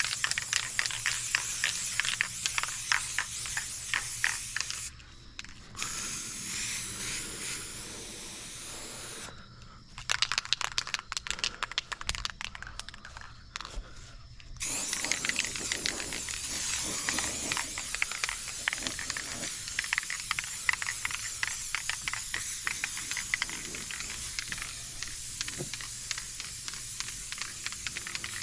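Aerosol spray paint can spraying in long hissing passes. Partway through the spray stops for a few seconds while the can is shaken, its mixing ball rattling, then the spraying resumes.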